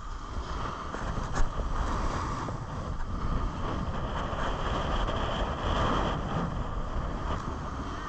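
Skis sliding and scraping over snow on a downhill run, a steady rushing hiss mixed with wind buffeting the microphone, growing a little louder toward the middle. One sharp knock about a second and a half in.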